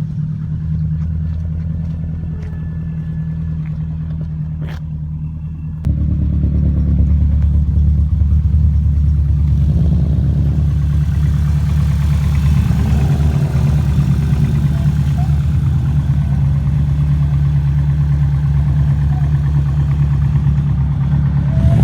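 A Subaru turbocharged flat-four engine running steadily, a low even hum. About six seconds in it abruptly becomes louder, and from about ten seconds in a wider rushing noise, like road noise, joins it.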